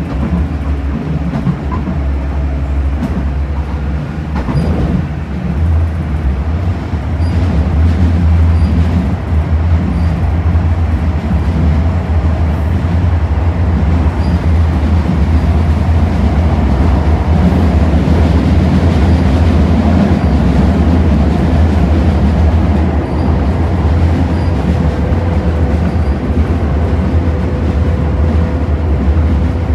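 Sheffield Supertram tram running along the line, heard from inside the passenger saloon: a steady low rumble of wheels on rail that grows louder several seconds in. A thin steady whine comes in near the end.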